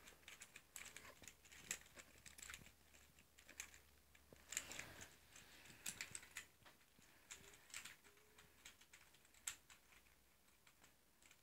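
Faint, irregular clicking of a plastic infinity cube fidget toy being folded and flipped quickly in the hands, with a few louder clicks among them.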